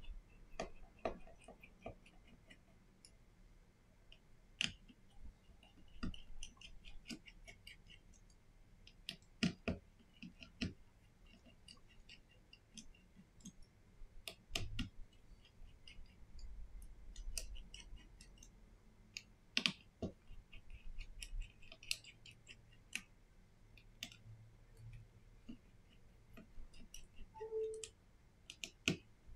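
Irregular small clicks and taps of a precision screwdriver and tweezers against an opened Samsung Galaxy A40's plastic midframe as its small screws are taken out and set down on a silicone mat.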